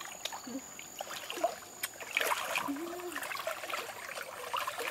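Water splashing and lapping around a person wading through a shallow river, with irregular small splashes that pick up about two seconds in. A single short low call sounds briefly near the middle.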